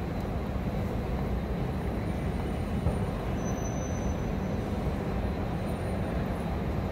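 Steady low rumble of a large train-station concourse's ambience, an even noise with no distinct events.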